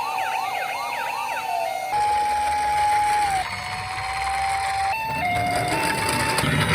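Electronic toy emergency-vehicle sirens sounding over one another: fast rising-and-falling wails over a steady tone at first, then long steady tones that step from one pitch to another, with a high-then-low two-note change about five seconds in.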